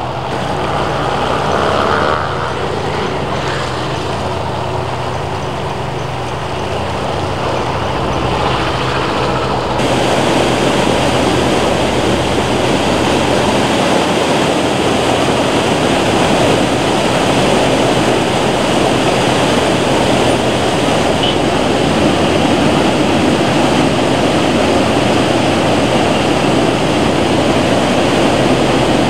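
Swollen, muddy floodwater of a river in spate rushing and pouring over a weir, a loud, steady rushing noise. In the first third a faint steady low hum runs under it; about a third of the way in the sound turns fuller and brighter at a cut.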